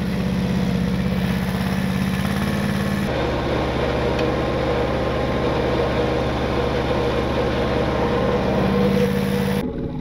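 Tractor engine running steadily while the tractor plows snow with a grader blade. The engine sound changes abruptly about three seconds in and falls away just before the end.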